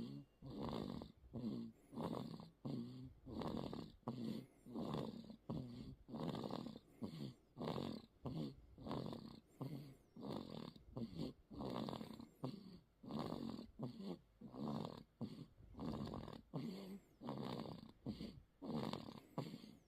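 A one-month-old newborn snoring in his sleep: noisy breaths that repeat in a quick, even rhythm, about two a second.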